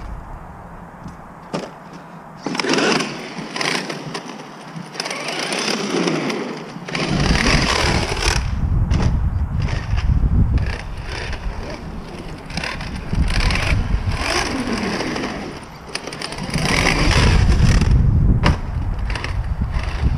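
Traxxas X-Maxx electric RC monster truck driving on skatepark concrete: its brushless motor whines, rising and falling with the throttle, over tyre noise in passes of a few seconds. Wind rumbles on the microphone, loudest about a third of the way in and again near the end.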